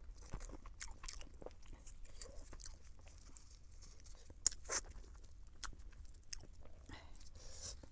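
Close-miked chewing of pork in chili sauce: soft wet mouth clicks and smacks, with one sharper bite about four and a half seconds in.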